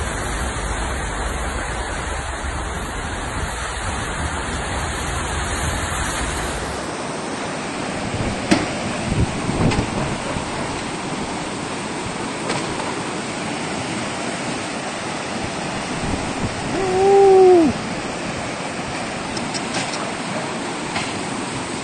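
Floodwater and heavy rain make a steady noisy rush. The sound changes abruptly about seven seconds in. A short, loud cry rises and falls about seventeen seconds in.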